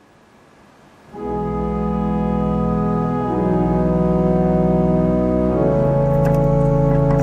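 Instrumental introduction to a song: faint hiss, then about a second in slow held chords begin, moving to a new chord twice.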